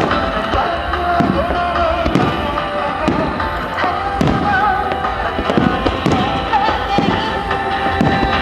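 Starmine fireworks barrage: aerial shells bursting in quick succession, irregular booms about once or twice a second, with music playing underneath.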